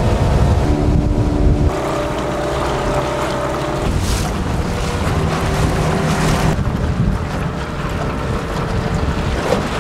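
Small outboard motor running on an aluminium dinghy under way, with water rushing past the hull and wind buffeting the microphone. The engine note shifts a few times.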